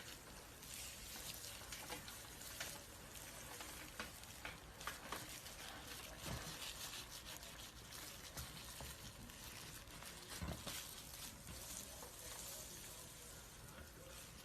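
Faint crackling rustle of dry snake skin as it is shed, with scattered small sharp clicks and crinkles.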